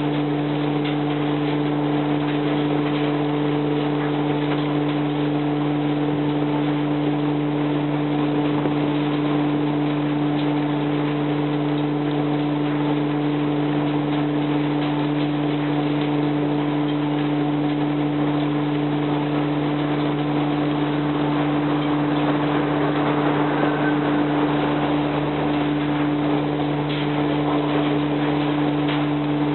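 Mobile trommel screen running: a steady machine drone with a constant noisy rush over it, unchanging throughout.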